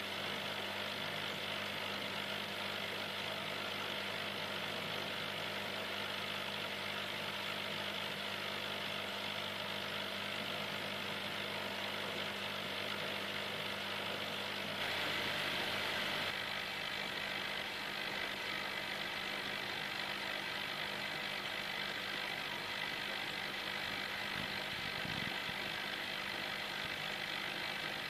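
Steady mechanical hum with a hiss, from running aquarium equipment such as a filter or air pump. About halfway through, the deepest part of the hum drops away and the hiss briefly grows louder.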